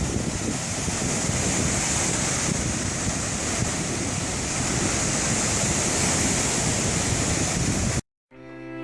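Steady rushing outdoor noise with wind buffeting the microphone. It cuts off abruptly about 8 seconds in, and bowed-string music begins just after.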